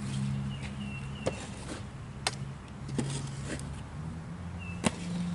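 Frontier OS23 sawmill's engine running with a low hum that shifts in pitch, with sharp knocks and clicks every second or so.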